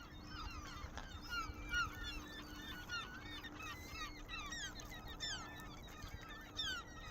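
A large gull colony calling: many gulls giving short, overlapping squawks and cries at once.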